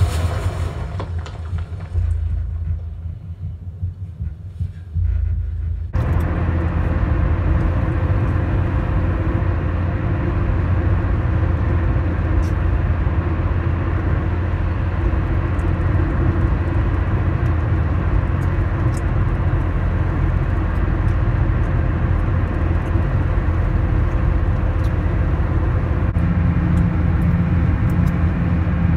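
A film soundtrack's low rumble fading out, then about six seconds in a sudden cut to steady road and engine noise inside a moving car, a low even rumble.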